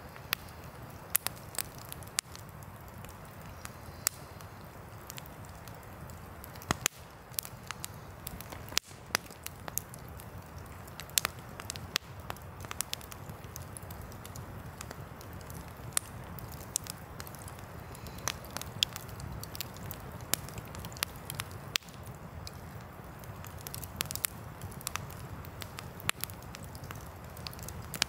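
Wood campfire crackling, with frequent irregular sharp pops from the burning logs over a steady low rumble.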